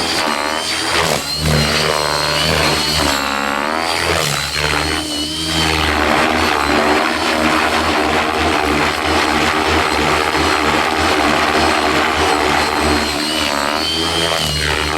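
Dubbed-in engine sound effect revving, its pitch sweeping up and down several times, then held in a loud, steady, noisy run through the middle before it sweeps again near the end.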